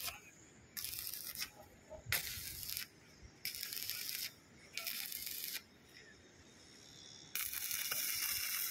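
Stick (electrode) welding arc crackling and hissing on a steel pipe joint, struck in about five short bursts of under a second each with brief gaps. Near the end it is held for a longer steady run of nearly two seconds.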